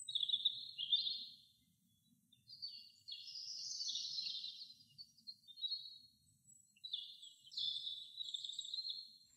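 A songbird singing several bright, trilled phrases, each one to three seconds long, with short pauses between.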